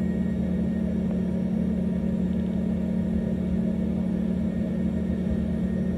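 Cabin noise inside an Embraer ERJ-145 regional jet as it taxis: a steady hum over a low rumble from its rear-mounted Rolls-Royce AE 3007 turbofans at taxi power.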